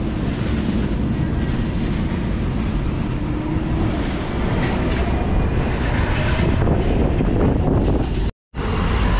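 Hong Kong double-decker electric tram running along the street: a steady, loud rumble and rattle with a faint rising whine. The sound cuts out for a split second near the end.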